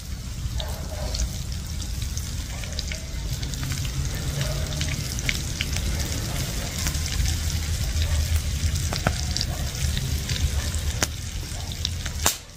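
Floured fish slices frying in hot fat in a pan: a steady sizzle scattered with small crackles and pops. A single sharp click near the end.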